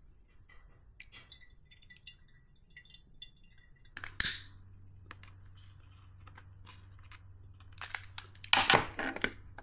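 Crinkling and rustling of a clear plastic packet being handled, with small clicks and light knocks on the table. There is a knock about four seconds in and a louder burst of rustling near the end.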